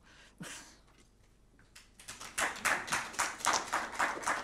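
Audience applauding, the clapping starting about two seconds in and continuing steadily.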